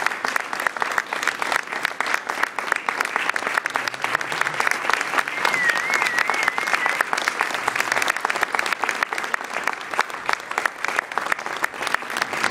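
Audience applauding steadily during a curtain call, a dense patter of many hands clapping. A brief wavering high tone rises above the clapping a little after halfway.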